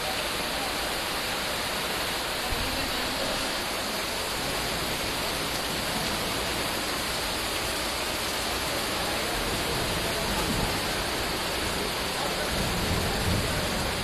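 Steady rushing noise of heavy rain and floodwater streaming through a waterlogged street, with a few heavier swells near the end.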